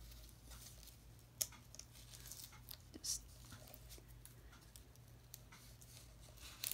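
Faint handling sounds of paper and twine on a craft table: a few soft taps and short rustles, the clearest about one and a half and three seconds in, over a low steady hum.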